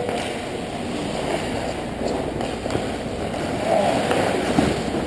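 Ice hockey game noise: skates scraping and carving the ice, a few sharp knocks of sticks and puck, and a player's shout near the end.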